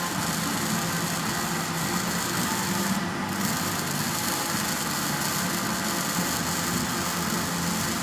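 Electric arc welding: a steady crackling hiss from the arc over a low, even machine hum. The hiss breaks off briefly about three seconds in.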